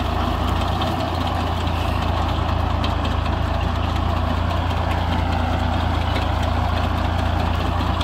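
Tractor engine running steadily, pulling a Sunking potato digger, with a continuous clatter of soil and potatoes falling over the digger's shaking grate.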